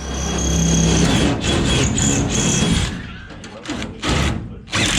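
Electric drill running steadily for about three seconds as it bores a bolt hole for a new bracket, then winding down.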